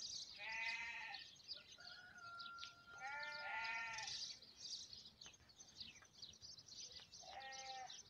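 Faint bleating of sheep or goat livestock: three short bouts of bleats, each under a second, about half a second in, around three seconds in and near the end.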